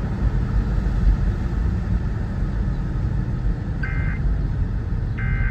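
Steady low rumble like a vehicle running, and about four seconds in, the first two of the Emergency Alert System's end-of-message data bursts: short two-tone digital bursts about a second and a half apart, signalling that the alert broadcast is ending.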